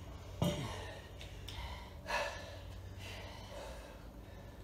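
Hard breathing while catching breath after exertion, with a loud exhale about two seconds in. A plastic water bottle knocks onto the floor about half a second in.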